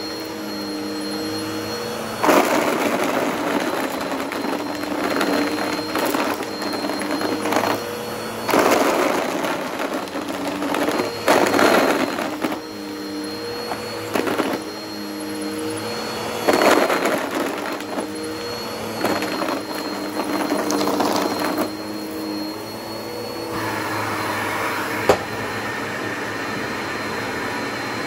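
Bissell CleanView OnePass upright vacuum running on carpet, its motor humming steadily, with loud bursts of rattling crunch every few seconds as it sucks up hard rubber pencil-cap erasers. The last few seconds are a steadier hum without the crunching, with one sharp click.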